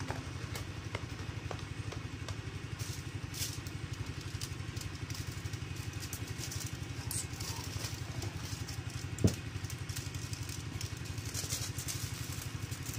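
An engine idling steadily in the background with an even, rapid chug. Over it come light clicks from glass bottles being handled, and one sharp knock about nine seconds in.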